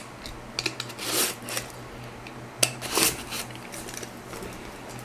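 A heavy shipping box being handled: scattered rustles, scrapes and light knocks, the strongest about a second in and near three seconds, over a faint steady hum.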